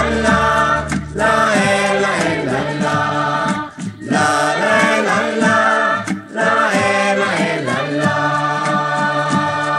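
Background music: a choir singing with instrumental accompaniment.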